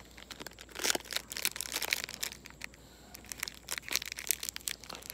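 Packaging crinkling and crackling in irregular bursts as it is handled, while items are taken out of a box of fishing lures.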